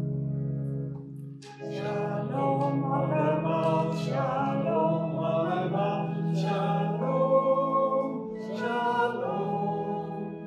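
A man and a woman singing a hymn of peace together over a held instrumental accompaniment, the voices coming in about one and a half seconds in after a sustained chord.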